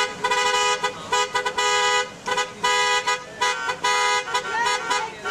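Car horns honking over and over, in a run of short and longer blasts, from passing drivers answering a roadside honk-and-wave rally.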